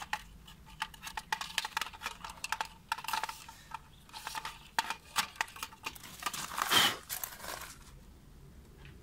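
Small clicks and rustles of hands working wires into the plastic housing of an infrared beam unit, with a louder scraping rustle about seven seconds in.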